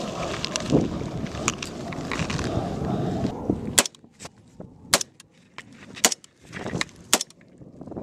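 Wind buffeting and rustling of movement, then, after an abrupt drop in level about four seconds in, four single rifle shots about a second apart during a firefight.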